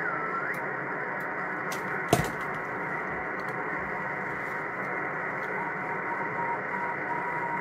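Yaesu FT-847 transceiver's speaker hissing with receiver noise while tuned to an amateur satellite downlink on 435 MHz, with little signal coming through. A whistling tone glides up and down at the start, a sharp click comes about two seconds in, and a faint steady whistle sounds near the end.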